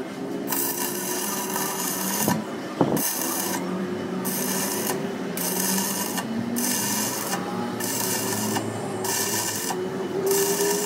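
Stick (arc) welding inside a cracked truck rear axle housing tube: the arc crackles and hisses in short runs broken by brief pauses, over a steady low hum. Two knocks come near the three-second mark.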